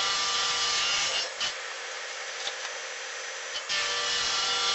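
Table saw blade crosscutting the end off an end-grain hardwood cutting board on a crosscut sled: a loud cutting whine for about the first second, quieter while the blade spins between cuts, then loud cutting again from near the end.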